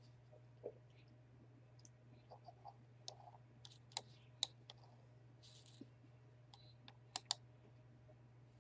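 Faint, scattered clicks from working a computer, with sharper clicks about four seconds in and a close pair near the end, over a low steady hum.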